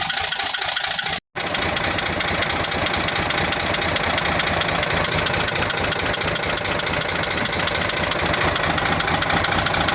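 Toyota 14Z six-cylinder diesel forklift engine idling with a fast, steady pulsing. It has a knock and a vibration that the owner puts down to lost compression, with the breather blowing hard, and he judges it due for a general overhaul. The sound drops out briefly about a second in.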